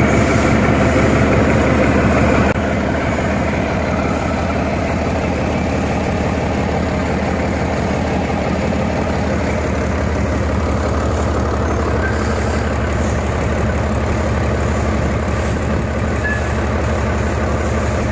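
Mercedes-Benz OM355 straight-six truck diesel engine running steadily at idle on an engine stand, being warmed up. It runs smoothly, which the mechanic describes as good running with no smoke.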